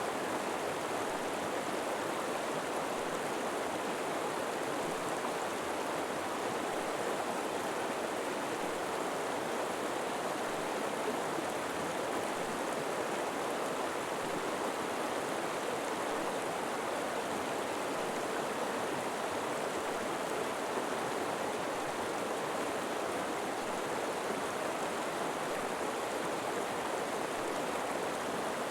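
River water flowing steadily over rocks, an even rushing babble with no change in level.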